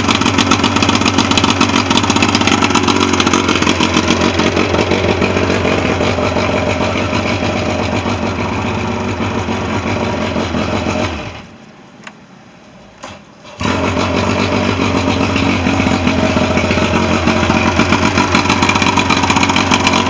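Mariner 125 outboard motor running steadily. It goes quiet for about two seconds a little past the middle, then is running again.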